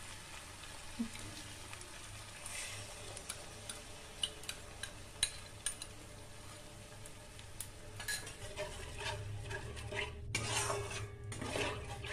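Onion-ginger-garlic paste frying in oil in a metal kadai with scattered crackles; a yogurt, cashew and spice mixture is poured in and stirred with a metal spatula, sizzling and scraping against the pan, busier from about eight seconds in.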